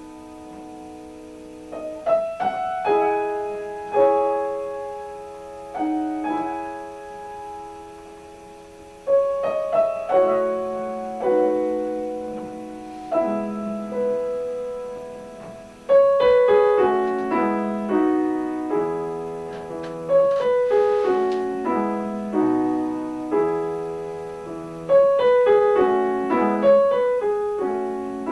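Piano playing a slow piece of held chords and melody notes, each struck and ringing away, moving into a busier run of notes about halfway through.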